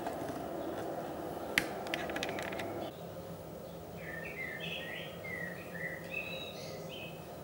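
Small birds chirping, a run of short rising and falling calls in the second half. A sharp click comes about a second and a half in, followed by a few lighter clicks, over a steady hiss that drops away about three seconds in.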